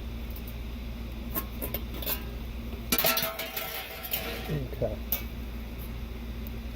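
Metal parts of a bathroom exhaust fan clicking and clattering as the motor is handled and fitted into the housing. There are scattered light clicks, a louder burst of clattering about three seconds in, and a few more clicks after it.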